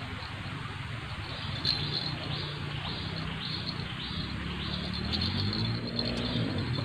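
Insect chirping in short, high pulses about twice a second, over a steady low rumble.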